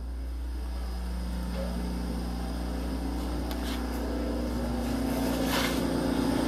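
Hyundai 2.0-litre 16-valve four-cylinder engine running steadily without revving, its sound growing louder toward the end as the tailpipe comes closer. A brief rustle is heard near the end.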